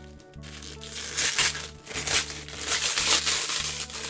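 Packaging crinkling and rustling in a few short bursts as a monitor stand is unwrapped, over faint steady background music.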